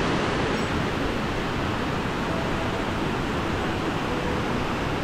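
Steady rush of a large waterfall, with water sliding down sloping rock slabs below it.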